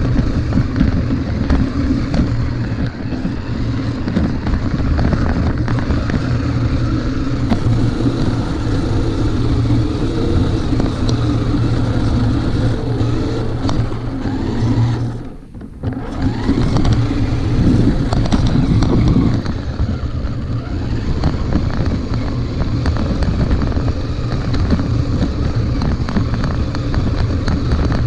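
RC monster truck running flat out, heard from a camera riding on it: the motor and drivetrain whirring with tyre and bumping noise. It drops out briefly about halfway through, then picks up again.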